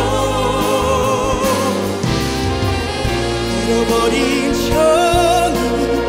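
A male trot singer singing a slow ballad over live orchestral accompaniment, holding notes with vibrato; there is a short break between sung phrases in the middle.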